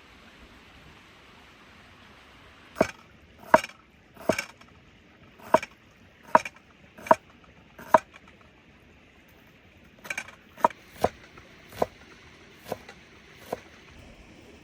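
Wood being chopped: about fourteen sharp blows, each ringing briefly, most well under a second apart, in two runs with a short pause in the middle.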